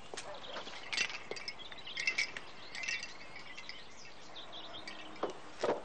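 Outdoor garden ambience with birds chirping in short high phrases, and a few soft knocks, the loudest near the end.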